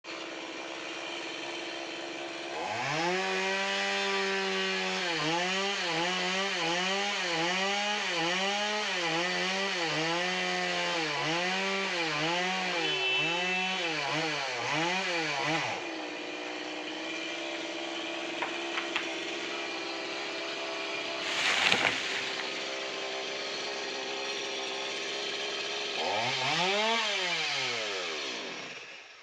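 Chainsaw engine running: it revs up about three seconds in, then rises and falls in pitch over and over, about once a second, until about sixteen seconds in, when it settles to a steady idle. A short burst of noise comes about twenty-two seconds in, then one more rev up and down before the sound dies away near the end.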